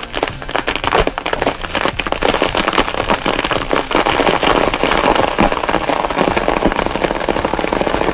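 Rapid crackling and snapping, like wood and brush breaking, over a steady low machine engine. About four seconds in, the crackle thickens into a denser, more even noise.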